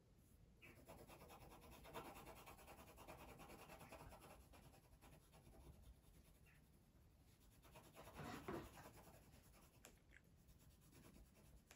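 Faint scratching of a pencil shading an area of paper, a bit louder over the first few seconds and again briefly later on.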